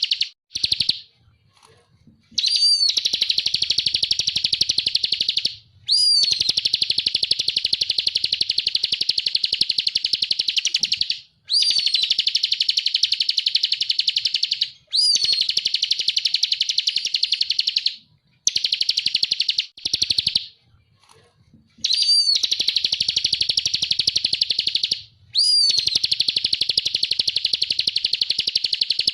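Bar-winged prinia (ciblek kristal) singing in long, very rapid high trills of a few seconds each. Each trill opens with a short rising note, and they repeat with brief pauses between them.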